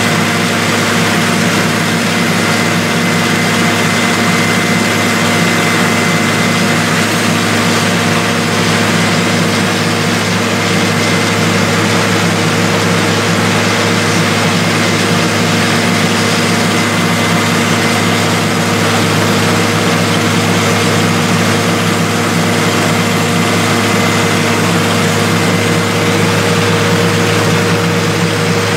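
Tube-well drilling rig running steadily: an engine drone under a loud hiss of air and water blowing out of the borehole at the drill head, unchanging throughout.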